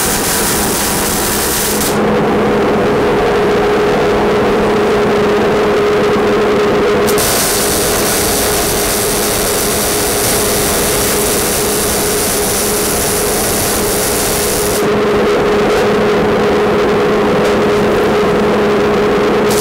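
MIG welding arc on a Millermatic 211 in gas-shielded mode sizzling in separate runs: a short one at the start, a longer one of about eight seconds from about seven seconds in, and another starting near the end. Under it a steady hum with a low tone runs throughout, from the dust collector used as a fume extractor.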